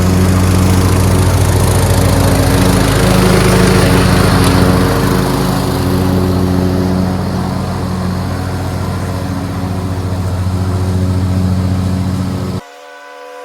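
Craftsman LT2500 riding lawn tractor engine running steadily. Near the end the engine sound cuts off abruptly and gives way to a much quieter steady tone.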